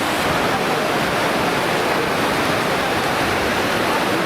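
Lower Yosemite Fall's steady, loud roar of falling water, heard close to the base of the fall.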